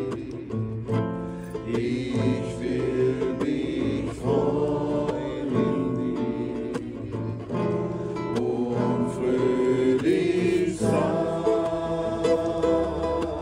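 A group of voices singing a slow worship song together, accompanied by a strummed acoustic guitar.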